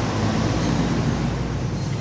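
A steady low mechanical hum and rumble, fading a little towards the end.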